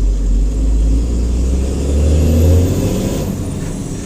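A motor vehicle's engine running under load, its deep rumble rising to a peak about two and a half seconds in, then easing off.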